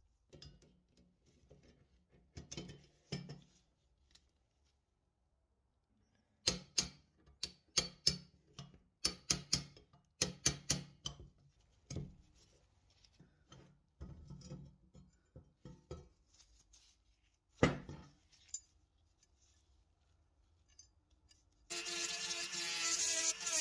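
Metal parts of an old cast iron scale mechanism clicking and clacking as they are handled and worked loose by hand, a quick run of sharp knocks with one louder knock late on. Near the end a small handheld power tool starts and runs steadily against the cast iron.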